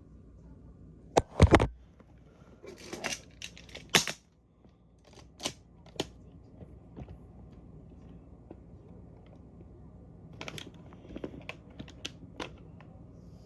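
Plastic magnetic building tiles clicking and clacking as they are handled and snapped into place. The loudest knocks come about a second in, followed by scattered clicks and a second cluster near the end.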